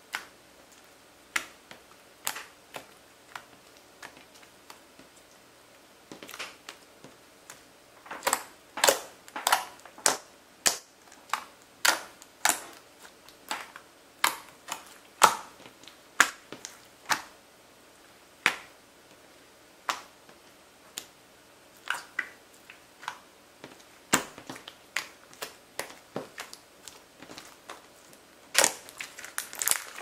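Red slime being poked, stretched and squeezed by hand, giving a string of sharp, sticky pops and clicks at irregular intervals. They come sparsely at first, then thickly about a third of the way in and again near the end.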